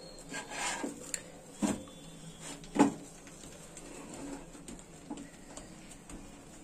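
Wooden spatula scraping and knocking on a nonstick tawa while toasting sandwiches are pressed and turned: several short scrapes and a few sharp knocks, the loudest nearly three seconds in.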